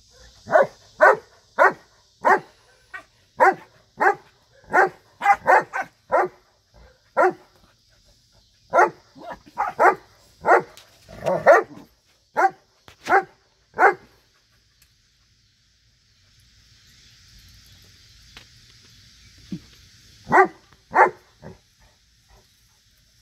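Newfoundland dogs barking in play: a quick run of short, sharp barks, about two a second, then a pause of several seconds and two more barks near the end.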